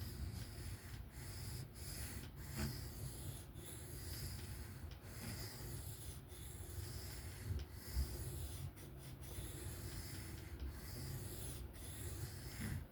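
Steel knife blade stroked freehand across a sharpening stone: a soft, even scraping, broken by brief pauses about once a second as each pass ends.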